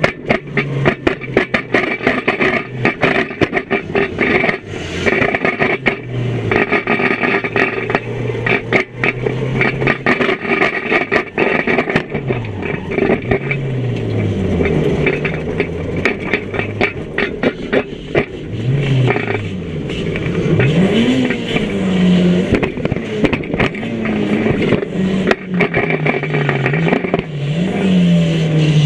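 Small banger-racing car's engine heard from inside the stripped cabin, revving up and down as it is driven hard, with constant clattering, rattling and sharp knocks from the battered bodywork and loose parts.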